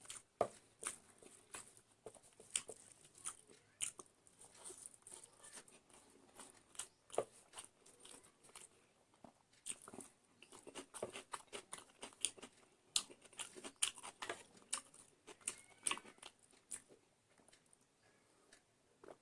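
A person eating close to the microphone, chewing a meal of rice with egg and chicken curry: many short wet mouth clicks at irregular intervals, thinning out near the end.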